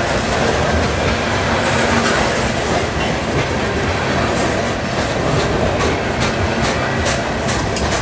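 Coal hopper cars of a long freight train rolling past close by: a steady rumble and rattle of steel wheels on rail. Sharp wheel clicks come thick in the second half.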